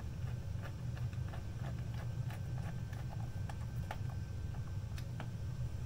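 Faint, irregular small clicks and taps of hands handling plastic wire-harness connectors and parts inside an opened speaker cabinet, over a steady low background hum.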